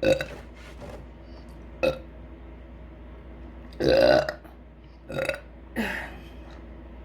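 A woman burping five times in a row, short belches spaced a second or two apart, the longest about four seconds in and the last one falling in pitch.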